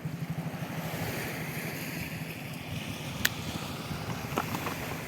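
Surf and wind on the microphone: a steady wash of noise with low rumbling gusts. A sharp click comes about three seconds in, and a fainter one a second later.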